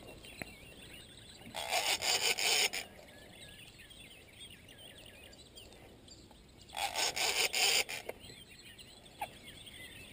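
Spinning reel's drag buzzing in two rasping bursts of about a second each, as a hooked wels catfish pulls line off it during the fight. Birds chirp faintly in between.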